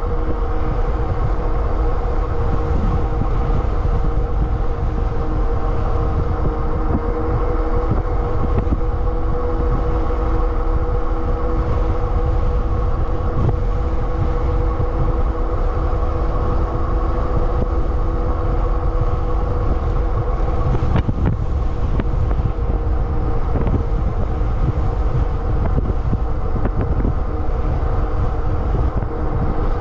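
Super73 RX electric bike cruising at a steady speed: heavy wind rumble on the microphone over a steady hum from the electric motor and tyres on the asphalt.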